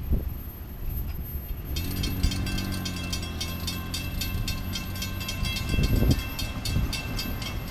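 Railroad grade-crossing warning bell starts ringing rapidly about two seconds in and keeps striking, with a low rumble from the departing freight train underneath. A car driving across the tracks swells up near the end.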